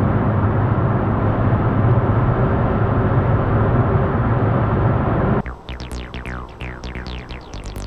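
Steady road and engine noise inside a car's cabin at motorway speed, with a low hum. About five seconds in it cuts off suddenly and electronic music takes over, with quick falling synth notes.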